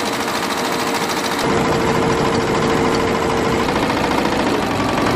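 Computerized multi-head embroidery machine running, its needles stitching in a fast, even rhythm. The sound shifts a little about a second and a half in.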